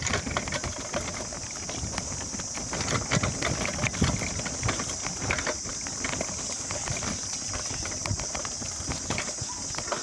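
Footsteps and mountain-bike tyres and frames clattering over a rough stone trail: a steady run of irregular knocks, crunches and rattles. A steady high insect drone runs underneath.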